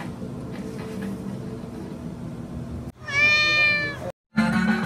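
A domestic cat's loud meow, one drawn-out call about a second long that comes about three seconds in, after a low steady background hum.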